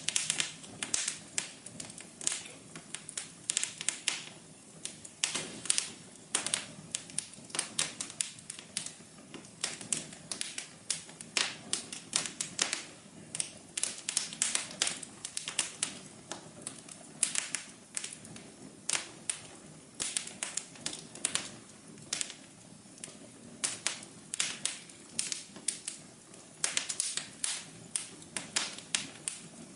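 Wood fire crackling: irregular sharp pops and snaps, several a second, some louder than others, over a soft steady hiss of burning.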